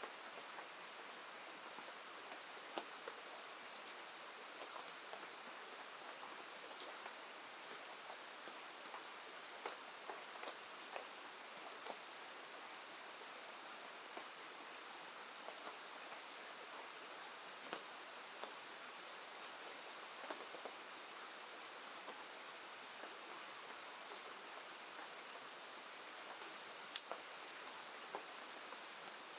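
Steady rain falling, with scattered sharp ticks of drops striking nearby surfaces.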